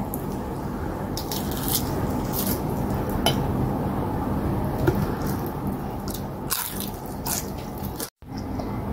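Wet chewing and lip-smacking while eating fish and fufu with the fingers: soft squishy mouth sounds with scattered short clicks, over a steady low hum. The sound cuts out for a moment near the end.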